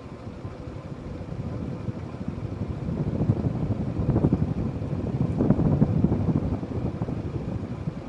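Evergo 4P-8CLW ceiling fan running, its air buffeting the microphone in a rushing noise. The noise swells over the first few seconds, is loudest about four to six seconds in, and eases off near the end.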